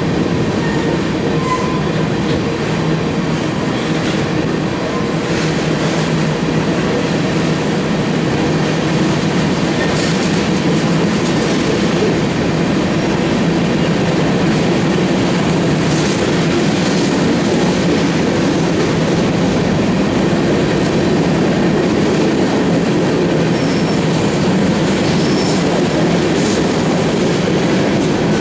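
Covered hopper cars of a freight sand train rolling past: a steady, loud rumble of steel wheels on rail, with occasional clicks and faint wheel squeal.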